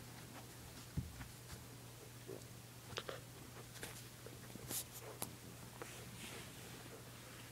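Samoyed puppy mouthing and chewing a tennis ball close by: faint scattered clicks and soft knocks, with a soft thump about a second in, over a low steady hum.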